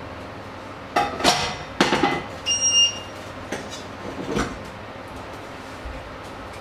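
Stainless steel pots and bowls clattering as they are handled and set down, a burst of clanks followed by a short bright metallic ring, then a couple of lighter knocks.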